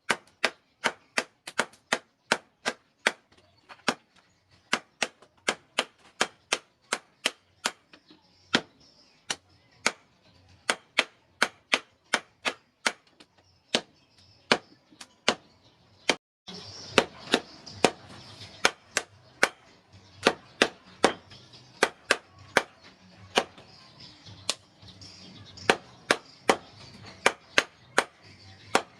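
Hammer blows on steel at an anvil, forging a knife blade, in a steady rhythm of about two ringing strikes a second. About two-thirds through, a sudden cut brings in a steady hiss under the blows.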